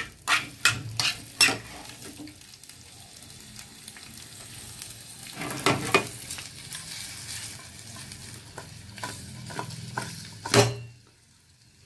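Large onion pieces with green and dried red chillies frying in hot oil in an aluminium kadhai, with a steady light sizzle, lightly fried just to take off the onions' rawness. A metal spoon clinks against the pan as it stirs, several times in the first second and a half, again about halfway through, and once sharply just before the sound cuts off near the end.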